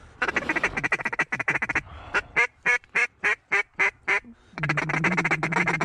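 Mallard quacking: a fast run of chattering calls, then a loud series of about eight evenly spaced quacks at roughly three to four a second, descending in cadence, as ducks are called in to the decoys.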